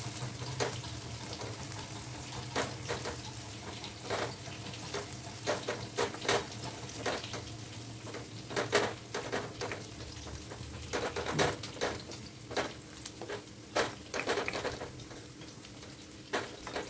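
Crushed garlic sizzling steadily in hot mustard oil in a metal kadai, frying until its raw moisture cooks off. A wooden spatula scrapes and knocks against the pan at irregular moments as it is stirred, and these knocks are the loudest sounds.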